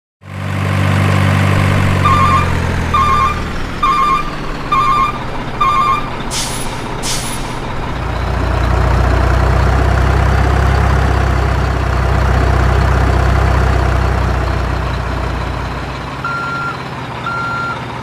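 Heavy dump-truck sound effects: a diesel engine running with a reversing alarm beeping about once a second, then two short air-brake hisses. A deeper engine drone follows, and the reversing beeps start again near the end.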